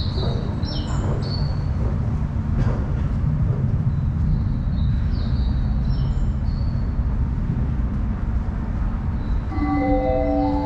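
Subway platform ambience: a steady low rumble, with short high sliding chirps near the start and again around five seconds in from the recorded bird-call guide tone played at station escalators. About nine and a half seconds in, an electronic platform chime melody begins.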